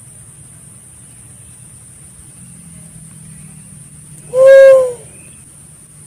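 Pink-headed fruit dove giving one loud hooting note about four seconds in, lasting just over half a second and dropping slightly in pitch at its end, played as a lure call. A faint steady high hiss and low hum run underneath.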